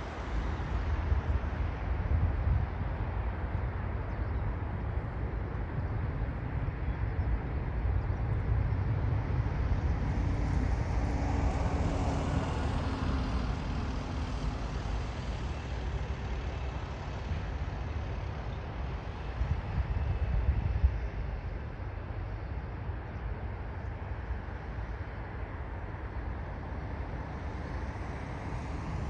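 Gusty wind buffeting the microphone, with a jet airliner on approach to land passing by. The jet swells to its loudest around the middle and then fades.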